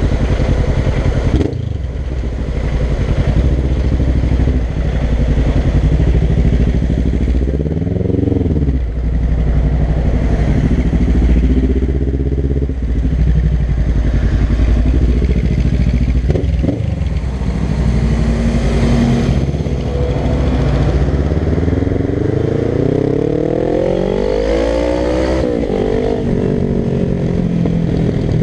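Suzuki GS500's air-cooled parallel-twin engine running through a Dominator GP I aftermarket exhaust at low, steady road speed, with a few brief rises in revs. Near the end the revs climb over about three seconds, then drop off.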